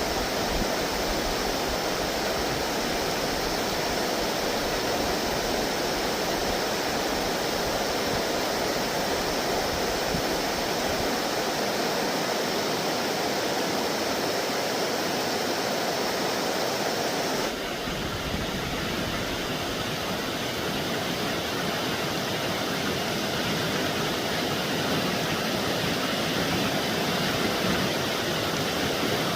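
Steady rushing of flowing stream water. Its sound changes abruptly about two-thirds of the way through, losing some of its hiss and gaining more low rumble.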